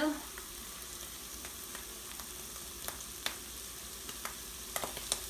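Black beans cooking in a hot pan, a steady low sizzle with a few sharp clicks scattered through it.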